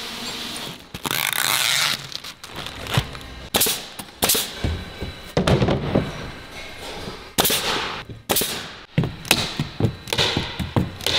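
Irregular sharp knocks and thuds of a plywood-and-timber shipping crate being handled and closed, with a stretch of rustling about a second in, fitting the plastic liner sheeting.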